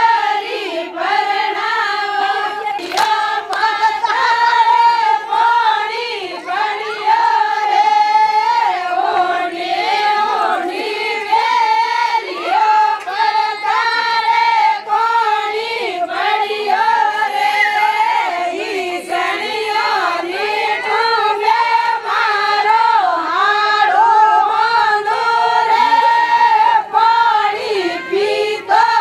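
A group of women singing a Marwari Fagan (Holi) folk song together in chorus.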